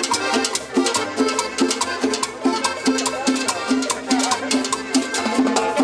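Salsa dance music from a small band (combo), with a steady percussion beat and a repeating low note pattern under it.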